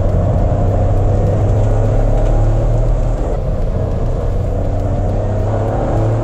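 Toyota GR Yaris H2's hydrogen-burning turbocharged three-cylinder engine running under way, a steady drone mixed with road noise, heard from inside the cabin. Its loudness eases slightly about three seconds in.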